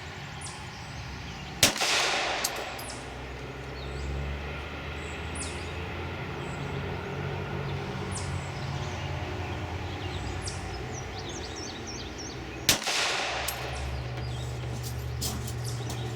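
Two slow, aimed shots from a Glock 26 subcompact 9mm pistol, about eleven seconds apart, each a sharp crack with an echoing tail. Birds chirp in between.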